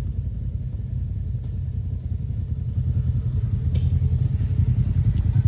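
Polaris RZR side-by-side running at low revs with a steady low rumble as it backs down a steep rut, growing slightly louder toward the end.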